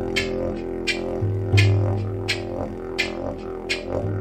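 Didgeridoo droning on one low note, freshly swelling about a second in and again near the end, over a shamanic drum beating steadily about three strokes every two seconds.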